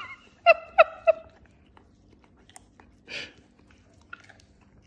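Chow chow licking and chewing yogurt from a spoon, with faint wet clicks. About half a second in come three short high-pitched squeaks, evenly spaced and the loudest sounds here, and around three seconds in a short breathy noise.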